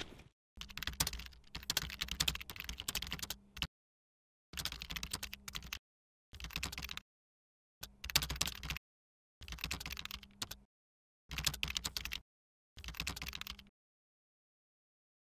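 Computer keyboard typing sound effect: seven short runs of rapid key clicks, each cut off abruptly into complete silence, the first and longest about three seconds, the rest around one second each.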